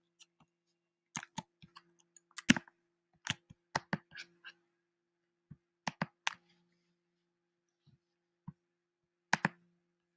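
Scattered, irregular clicks and taps of a computer mouse and keyboard, about fifteen over the stretch, with a cluster about a second in through four seconds and another pair near the end. A faint steady low hum runs underneath.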